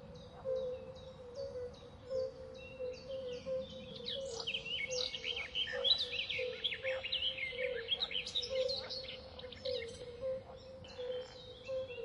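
Birds chirping and calling, busiest in the middle of the stretch, over a steady, evenly pulsing hum.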